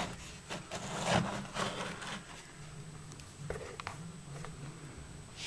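Faint scraping and soft knocks of a miniature metal triple-expansion steam engine model being turned around by hand on a tabletop, with a few small clicks about three and a half seconds in.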